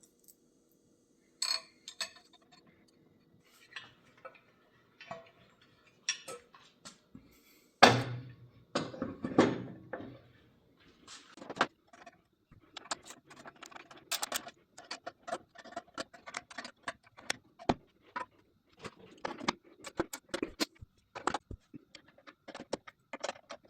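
Small metal parts and hand tools clinking, clicking and tapping in quick, irregular strokes, as during hands-on reassembly work on a machine, with one heavier knock about eight seconds in.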